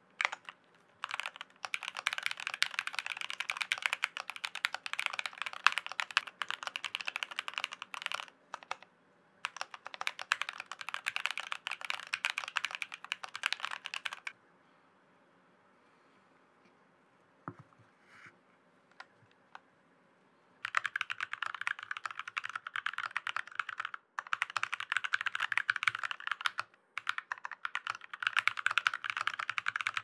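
Fast typing on a YMDK SP64 aluminium split mechanical keyboard fitted with Tangerine linear switches, its case damped with tape mods. Two long runs of rapid key clacks are broken by a pause of about six seconds near the middle, which holds only a few faint scattered clicks.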